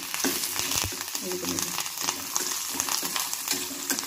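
Shallots, spices and curry leaves sizzling in hot oil in a metal kadai, with a metal spatula scraping and clicking against the pan as they are stirred.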